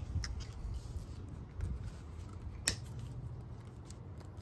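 Diagonal cutters snipping a nylon zip tie tail with one sharp click about two and a half seconds in, among a few faint ticks from handling the plastic ties and cable.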